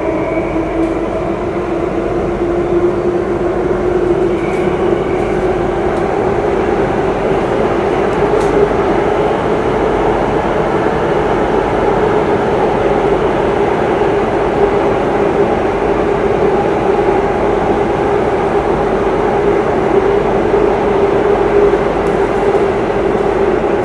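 Singapore MRT train running, heard from inside the passenger carriage: a loud, steady rumble of running noise. A whining tone rises slightly over the first few seconds and then holds steady.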